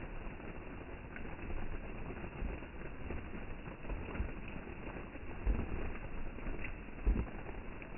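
Low rumbling outdoor background with a few dull thumps, the strongest about five and a half and seven seconds in, and faint bird calls.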